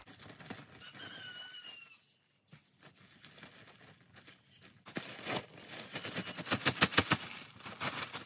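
Dry sugarcane mulch being shaken out of a plastic bag onto a garden bed: a rapid crackling, crinkling rustle that starts about halfway through and is the loudest sound.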